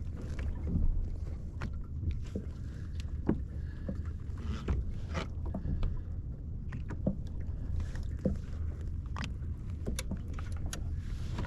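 Steady low rumble of wind and water around a kayak, with scattered small clicks and knocks from handling on board.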